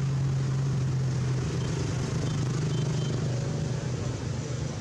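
Steady low hum of an engine running, its pitch shifting slightly about a second and a half in.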